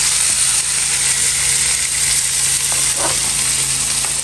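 Hot cooking oil sizzling steadily in a frying pan as diced raw meat is slid in off a plastic cutting board, with a brief scrape about three seconds in.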